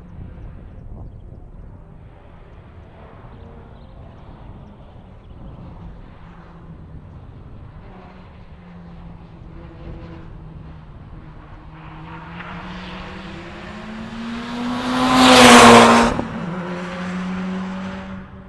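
A rally car on a tarmac stage approaching at speed, its engine note growing from distant to close and loudest about fifteen seconds in as it passes, then dropping in pitch and fading as it pulls away.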